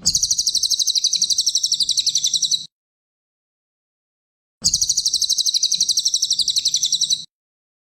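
Cililin songbird singing a fast, high trill of about a dozen notes a second, in two bursts of about two and a half seconds each that start and stop abruptly.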